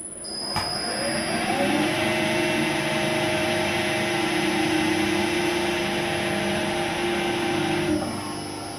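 Electric motor and gear drive of an Uzor-N1 benchtop cold-forging machine running as a 20×20 square profile tube is rolled through its forging-block rollers. It starts about half a second in, its hum rises a little in pitch over the first second or so, then runs steady and stops near the end.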